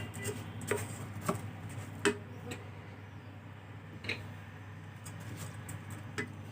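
Spatula knocking and scraping against a frying pan while rice and fried onions are stirred, a few scattered light taps over a low steady hum.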